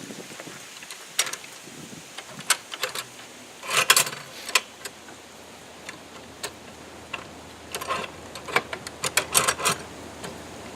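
Metal clicks and clinks of table saw guard parts being handled and fitted into place, in scattered clusters, the loudest about four seconds in and again near the end.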